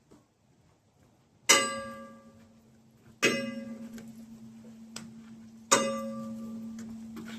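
A resonant metal object struck three times at uneven intervals. Each clang starts sharp, its bright overtones fade within a second or two, and a single low tone rings on steadily through the strikes.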